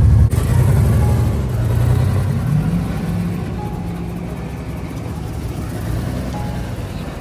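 1939 Chevrolet's engine running. It is loud and close at first, then after a sudden change about a third of a second in it is heard from further off and grows gradually quieter, with background music.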